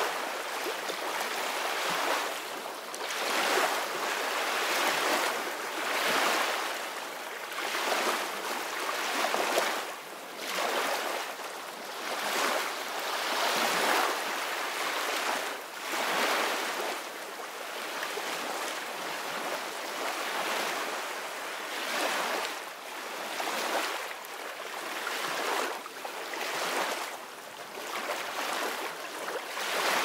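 Small waves breaking on a sandy shore and washing up the beach: a rushing hiss that swells and fades every couple of seconds.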